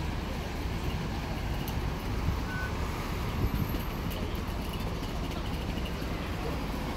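Hong Kong Light Rail Phase 5 two-car train running into the stop, a steady low rumble with a brief high tone about two and a half seconds in.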